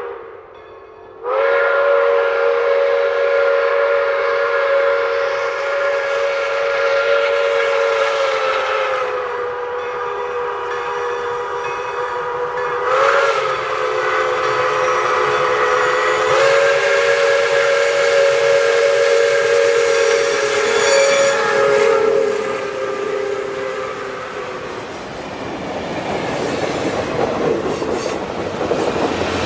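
Pere Marquette 1225, a 2-8-4 Berkshire steam locomotive, blowing its steam whistle. The whistle starts about a second in and is held as one long chord of tones for over twenty seconds, wavering a few times. Near the end the whistle stops and the train's running noise and wheel clatter take over as the coaches pass.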